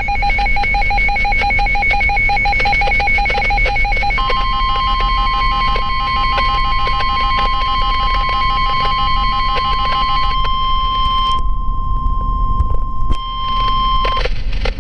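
Weather radio alert for a severe thunderstorm warning. A fast-pulsing electronic beep sounds first, and about four seconds in the steady 1050 Hz NOAA Weather Radio warning alarm tone joins it. The beeping stops a few seconds before the steady tone, which lasts about ten seconds and cuts off shortly before the end.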